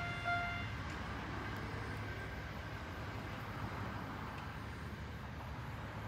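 Japanese level-crossing warning bell ringing in its single-tone pattern, about two strikes a second, stopping about a second in as the crossing clears. A low steady rumble remains afterwards.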